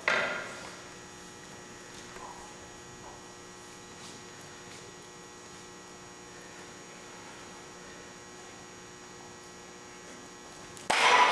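Steady electrical mains hum with many fixed tones. A loud sound fades away in the first half second, and a sudden loud sound breaks in just before the end.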